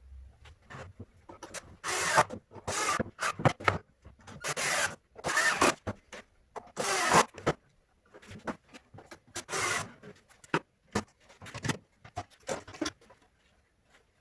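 Cordless drill run in short bursts into wood, drilling pilot holes and driving screws. There are about ten bursts, each under a second, with short pauses between them.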